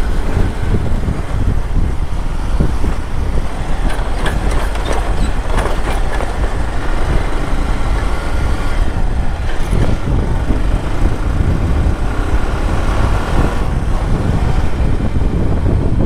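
Motorcycle being ridden at road speed, heard from the rider's position: a steady rush of wind on the microphone over the engine's drone. A few brief knocks come about four to six seconds in, as the bike goes over broken road.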